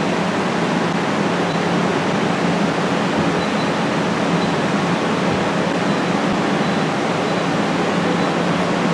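Steady, even hiss with a low hum from a laser welding machine running, its cooling fans and water cooling going with no change.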